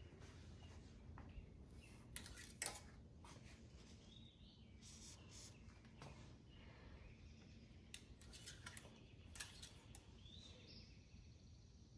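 Near silence, with a bird chirping faintly now and then in the background and a few light clicks and rustles, the sharpest about two and a half seconds in.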